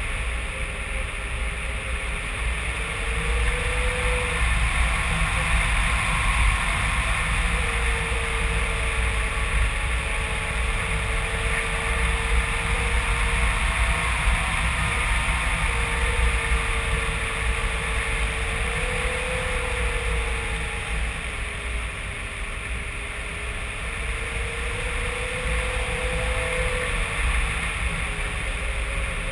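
Rushing airflow over a GoPro mounted on a flying RC glider: a steady, loud wind rush with a deep buffeting rumble. Through it runs a thin whine that slowly wavers up and down in pitch.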